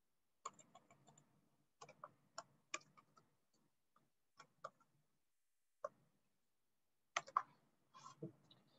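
Faint computer keyboard keys being tapped in short, irregular runs of clicks as text is typed.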